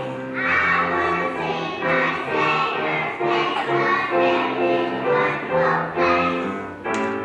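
Children's choir singing with instrumental accompaniment and a steady bass line.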